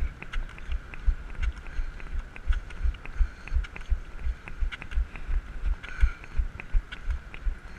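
Running on crutches: a quick, steady rhythm of low thumps, about three to four a second, with sharper clicks from crutch tips and feet striking the pavement.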